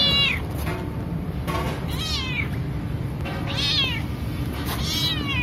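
Calico domestic cat meowing repeatedly, about four meows spaced a second or so apart, each rising and then falling in pitch.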